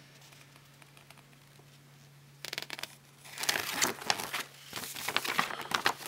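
Paper instruction leaflet being unfolded and handled: crinkling and rustling with sharp crackles, starting about two and a half seconds in and getting louder a second later.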